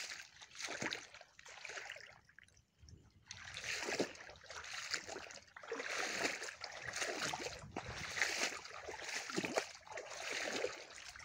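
Muddy floodwater running and splashing through a waterlogged crop field, an uneven hiss of water that swells and fades.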